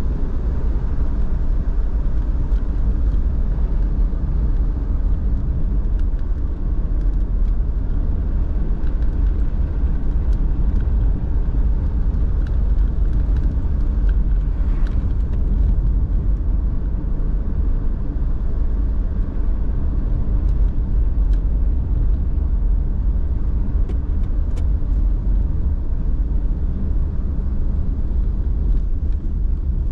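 Car driving at a steady pace: a continuous low rumble of engine and road noise with no change in speed, and a few faint ticks scattered through it.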